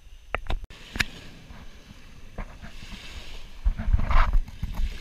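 Wind buffeting the microphone in low rumbling gusts, growing strong about three and a half seconds in, with a few scattered clicks before that.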